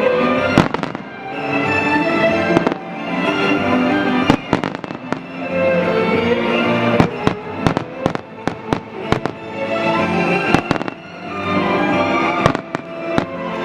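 Aerial fireworks bursting in repeated sharp cracks and bangs, in clusters, over music playing throughout.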